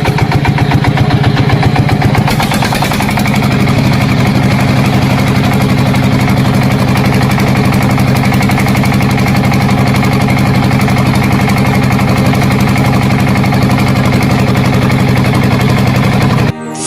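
Small engine of a homemade mini tractor-bulldozer running with a rapid chugging beat, a little faster and busier for the first couple of seconds, then settling to a steady idle. It stops abruptly near the end.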